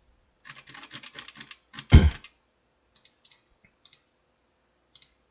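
Typing on a computer keyboard: a quick run of key presses, then one loud thump about two seconds in, followed by a few scattered single clicks.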